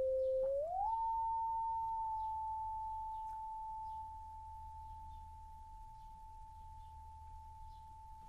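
Pure sine tone from a Max/MSP cycle~ oscillator. It holds near 520 Hz, slides up in pitch to about 880 Hz about a second in, and then stays steady. It grows quieter as the gain slider is turned down, with a clear drop about four seconds in.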